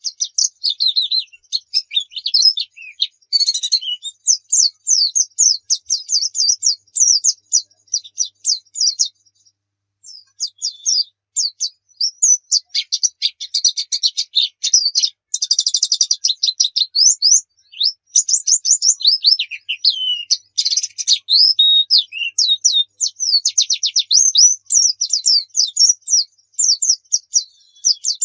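White-eye (pleci) singing a long, fast run of high, chirping, downward-slurred notes, with a brief pause about nine seconds in. This is the continuous rolling song that keepers play to caged white-eyes to spur them into singing.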